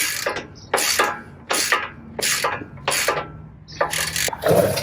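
A hand ratchet wrench working the upper control arm's ball-joint nut on a Ford Raptor's front suspension, in repeated short raspy strokes about every 0.7 s. The nut is loose and spinning together with its bolt.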